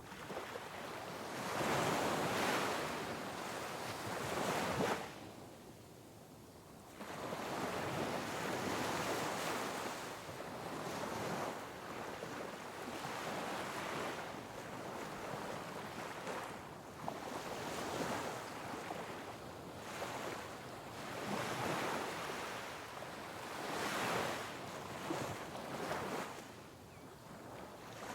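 Sea waves breaking on rocks, the rush of surf swelling and ebbing every few seconds, with a louder wave about two seconds in and a brief lull around six seconds. Some wind buffets the microphone.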